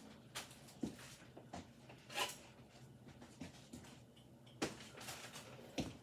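Faint, scattered knocks and clicks of a person moving about and handling household objects, about eight in all with the loudest about two seconds in, over quiet room tone.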